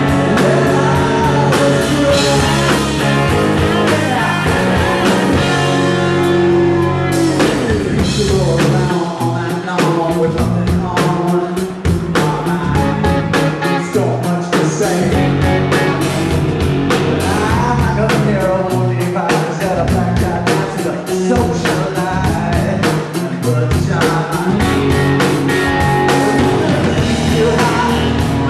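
Live rock band playing: a male lead vocal over two electric guitars, electric bass and a drum kit, with a steady drum beat. The band thins out for a moment around six seconds in, then comes back in full.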